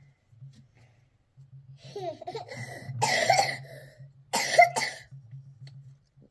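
A person coughing: two harsh coughs about a second and a half apart, the second one sharper, with a short throaty vocal sound just before them.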